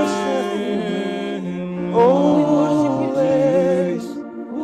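Worship team slowly singing a worship song, holding long, drawn-out notes over a steady low held tone. One phrase ends about one and a half seconds in and a new one starts about two seconds in.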